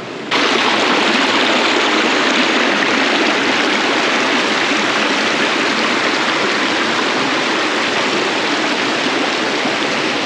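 Steady rush of flowing water from a rocky gorge stream. It cuts in abruptly just after the start and holds even throughout.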